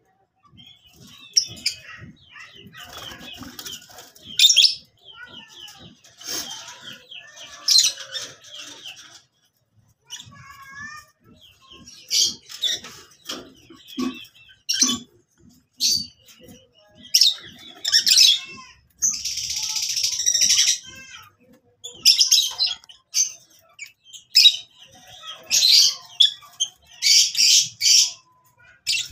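Lutino peach-faced lovebirds chattering: many shrill, high chirps and squeaks in repeated quick clusters, with one longer harsh, buzzy call about two-thirds of the way through.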